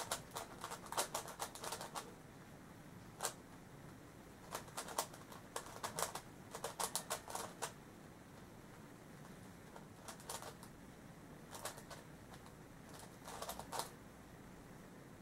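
Yuxin Little Magic megaminx being turned by hand: runs of quick plastic clicks as its faces are twisted, in several bursts with short pauses between them.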